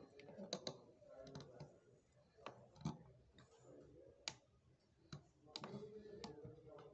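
Faint, irregular clicks of a steel setting tool pressing and slipping on the silver bezel of a ring, as the bezel is pushed down around a cabochon stone in a wooden ring clamp.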